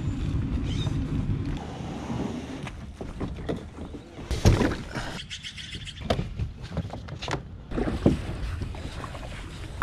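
Fishing kayak being paddled: irregular knocks of the paddle and gear against the hull with water splashes, the loudest knock about four and a half seconds in, over a low wind rumble.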